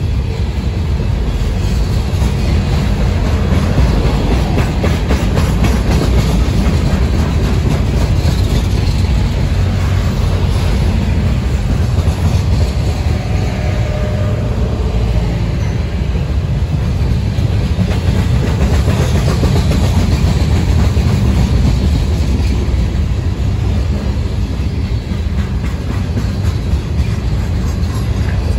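Freight train of boxcars rolling past at speed: a loud, steady rumble of steel wheels on the rails, with scattered clicks as wheels cross rail joints.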